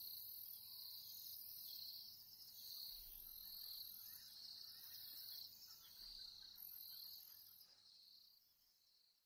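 Faint, high-pitched chirring of insects, pulsing roughly once a second, fading out near the end.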